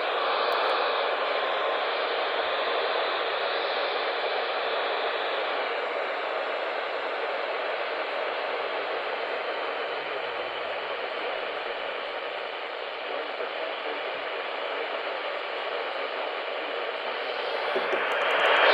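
Radio static: a steady hiss from a radio receiver on a weak signal, swelling louder just before the end.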